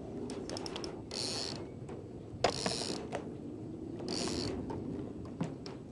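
Spinning reel being cranked while a hooked carp is played on a bent rod, its gears turning steadily with clicks, and a short high rasp about every second and a half as the rod is pumped.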